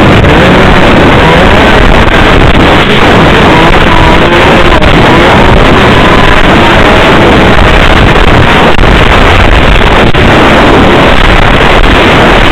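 Snowmobile engine running steadily while riding, its pitch wavering up and down, with wind buffeting the microphone; recorded very loud.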